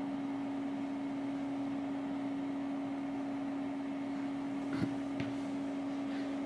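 Steady hum with a constant low tone from running equipment. Two faint clicks in quick succession about five seconds in.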